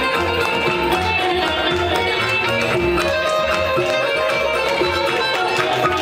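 Live band music for the dance: a plucked string instrument playing the melody over a steady, regular drum beat.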